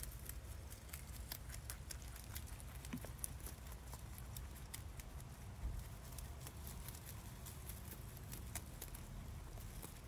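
Domestic rabbit chewing fresh leafy greens: a rapid, irregular run of small crisp crunches over a steady low rumble.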